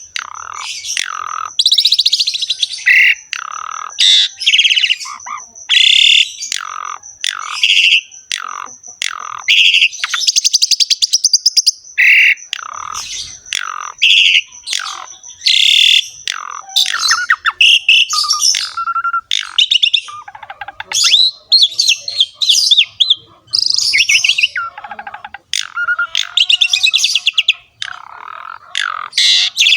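Javan pied starling (jalak suren) singing loudly and continuously in a rapid string of short phrases, mixing harsh rattling chatter with whistled notes. A thin, steady, high-pitched tone runs beneath the first half.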